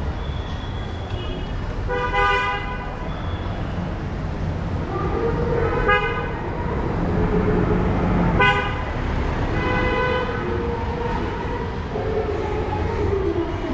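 Busy city street traffic with vehicle horns honking over and over: about five short toots of differing pitch from different vehicles, over a steady low rumble of engines.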